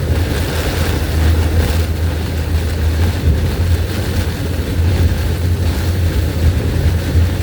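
Steady road and wind noise inside a car driving through high wind and heavy rain: a heavy low rumble under an even hiss of rain and wind.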